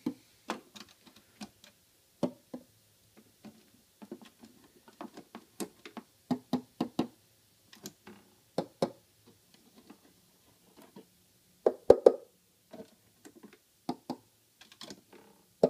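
Metal pliers tapping on the chrome covers of a 1964 Guyatone Kent Americana's pickups, heard through the amplifier as scattered knocks and clicks with a short ring, a few of them louder about twelve seconds in, with switch clicks from the control plate. It is a tap test showing that the rewound pickups are live.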